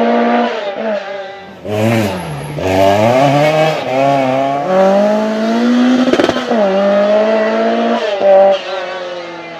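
Lancia Rally 037's supercharged four-cylinder engine driven hard, its revs climbing in steps through quick upshifts and dropping off when the driver lifts. There is a short sharp crack about six seconds in.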